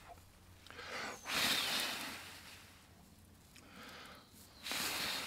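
A person blowing hard in three long puffs, the second fainter than the other two, the last starting near the end.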